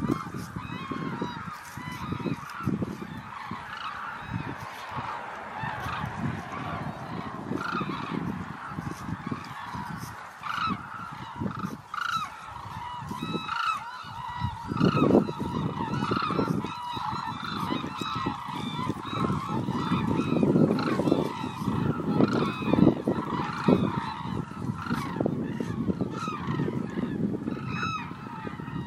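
A large flock of hooded cranes calling continuously, many short overlapping calls running together into a steady chorus.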